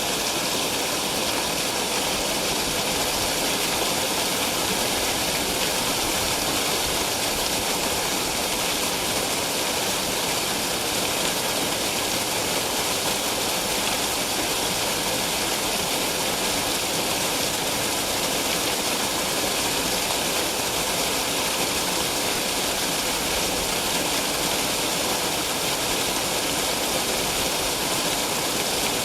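Steady, unchanging rushing noise, hiss-like and heaviest in the high range, with no distinct events.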